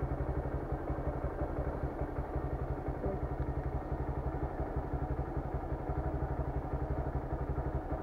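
Motorcycle engine idling steadily, a small engine with an even, regular beat.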